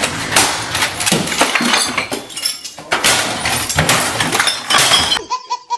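A computer monitor and keyboard being smashed against a desk: a dense, continuous run of crashes with cracking and shattering debris. It stops abruptly near the end, where a quick string of short pitched sounds begins.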